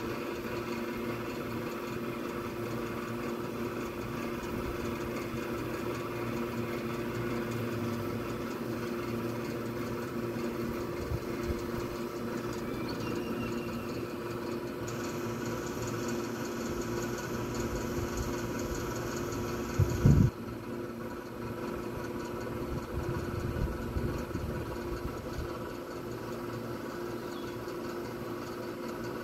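A steady machine hum runs throughout, held on a few fixed tones, much like an engine idling. One loud, low thump comes about two-thirds of the way through.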